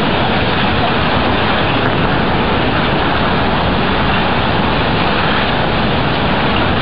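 Loud, steady rushing noise that never lets up and has no pitch or rhythm in it.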